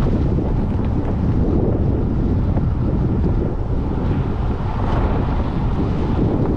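Heavy wind noise on the microphone: a loud, steady low rumble that covers everything else.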